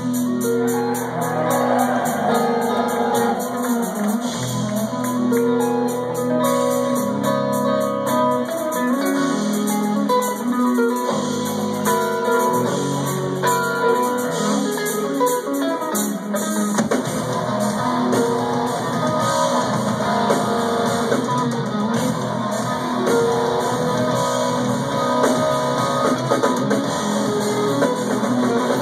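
Instrumental progressive metal played live by a band of two eight-string electric guitars and drums. A guitar passage over sustained low notes thickens, a little past halfway, into a denser, heavier full-band section.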